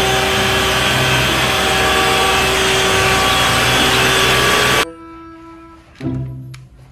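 Yellow Isuzu water tanker truck running while its roof water cannon sprays a high jet of water: a loud, steady rushing noise with a steady hum through it, cutting off suddenly about five seconds in. Quieter sound follows.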